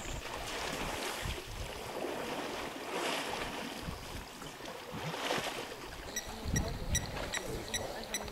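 Water splashing and sloshing in surges as a herd of African elephants wallow and tussle in a river pool. A rapid series of high chirps joins about six seconds in.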